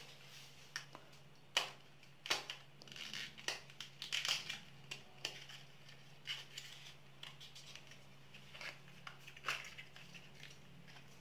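Foil wrapper of a chicken stock cube being crinkled and peeled open by hand: irregular sharp crackles, busiest in the first half, over a faint steady low hum.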